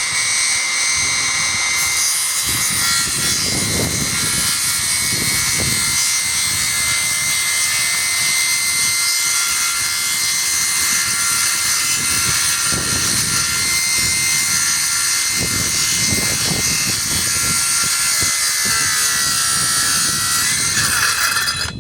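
Cordless circular saw running at full speed with a steady high whine, low rumbles coming and going beneath it. Near the end the pitch sags, then the saw winds down and stops.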